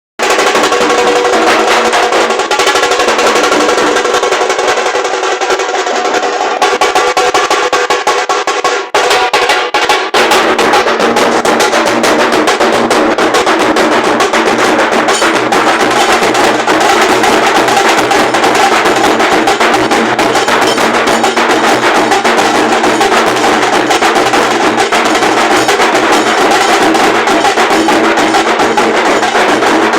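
A band of big dhol drums playing loudly and continuously, a fast driving beat with rolls. A held pitched tone runs alongside for the first nine seconds; after a brief break the drumming grows denser.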